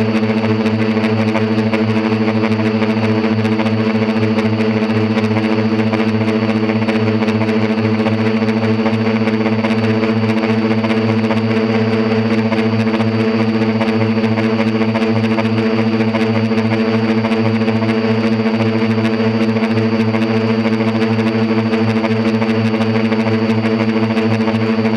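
Quadcopter's electric motors and propellers running steadily, heard through its onboard camera: a constant hum holding one pitch with no change in speed.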